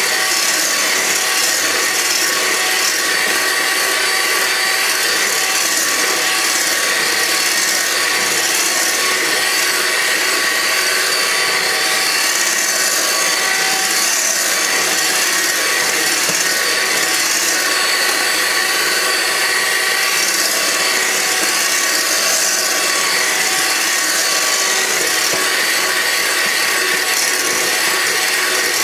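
Electric hand mixer running steadily with a motor whine, its beaters whipping egg whites and sugar into a stiff meringue in a metal bowl.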